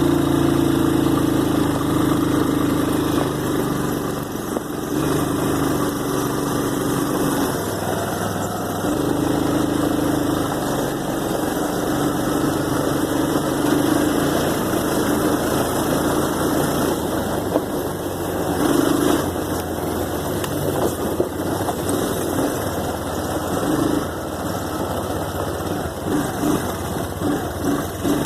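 Off-road vehicle engine running, its note shifting and fading in and out as the throttle changes.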